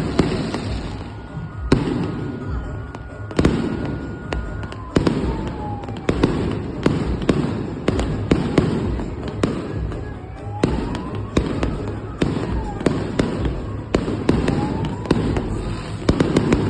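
Fireworks display: a rapid, continuous string of sharp bangs and crackles over a low rumble, with a few brief whistling tones gliding up and down.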